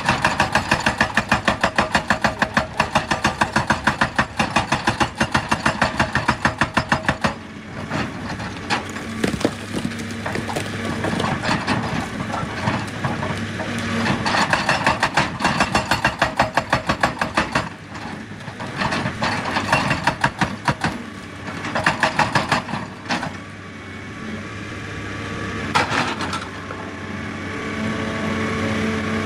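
Excavator-mounted hydraulic rock breaker hammering rock in bursts of rapid, evenly spaced blows, over the excavator's diesel engine running steadily. One long burst opens the sound, followed by several shorter ones.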